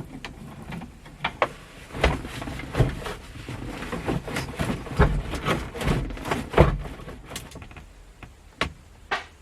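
Irregular clunks, clicks and rattles of the heater box and its control cables being handled and tugged under a 1966 Mustang's dashboard, busiest in the middle with a few heavier knocks.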